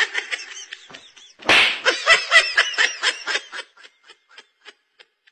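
Laughter in a quick run of short 'ha' pulses, with a sudden loud rush of noise about a second and a half in; the laughter then fades away and stops near the end.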